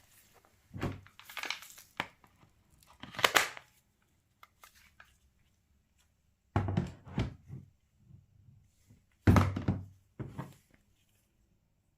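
A series of separate handling noises: thunks and knocks mixed with crinkling, rustling sounds, each burst under a second long, with short quiet gaps between them. No motor is running.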